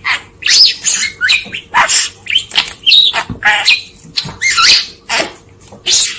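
Budgerigar chattering: a quick, unbroken string of short squeaky chirps and warbles.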